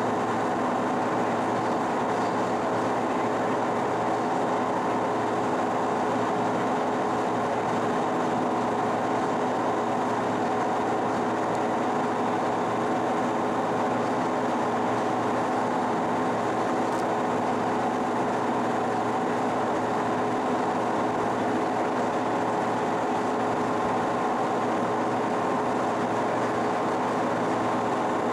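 1955 King 100-inch vertical turret lathe running under power, its drive and gearing giving a steady, even whine of several tones over a mechanical hum as the right-hand railhead is run along the rail at rapid traverse.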